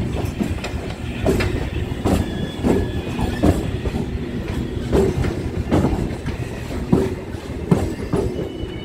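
Passenger train coach wheels knocking over rail joints and points, with uneven sharp clacks about once a second over a steady low rumble, and a faint squeal here and there.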